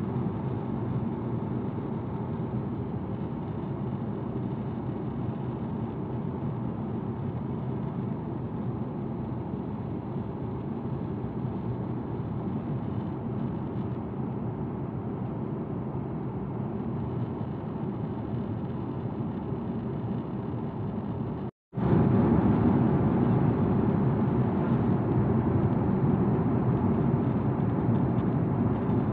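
Jet airliner cabin noise in flight: the steady drone of the engines and rushing air, deep and even. About three quarters of the way through it breaks off for an instant and comes back louder.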